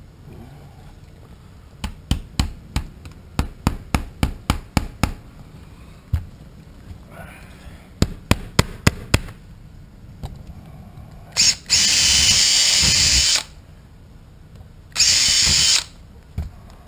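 Cordless drill running in two bursts, the first about two seconds long and the second under a second, fastening a livewell vent cover into the boat deck. Before that comes a string of sharp clicks, several a second.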